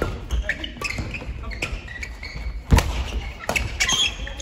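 Doubles badminton rally: rackets striking the shuttlecock several times, the loudest hit about two-thirds of the way in, with court shoes squeaking and footsteps thudding on the hall floor.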